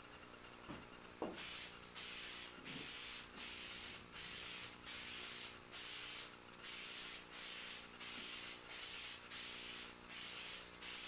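Aerosol can of spray lacquer hissing in a rapid series of short passes, about a dozen half-second sprays with brief gaps, as a coat of lacquer goes on. A couple of light knocks come just before the spraying starts.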